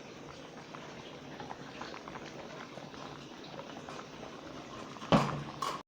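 Pot of lentil soup bubbling at a simmer, a steady low bubbling hiss with small pops. A short, loud voiced sound comes about five seconds in, and the sound cuts off abruptly at the end.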